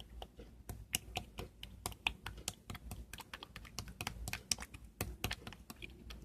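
Two-layer slime being squeezed and pressed by hand, giving rapid, irregular clicking and popping sounds, several clicks a second.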